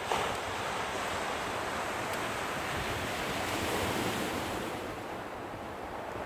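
Steady wash of surf breaking on a beach, with wind buffeting the microphone.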